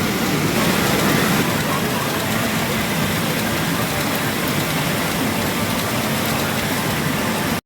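Steady, dense din of a pachinko parlour, many machines running at once, cutting off suddenly near the end.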